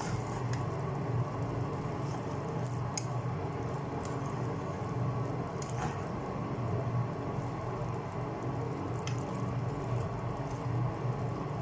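Chicken wings simmering in oyster sauce in a pan: a steady bubbling with a few small pops.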